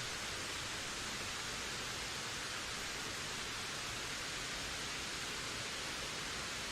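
Wind blowing in a steady, even rush, without gusts rising or falling.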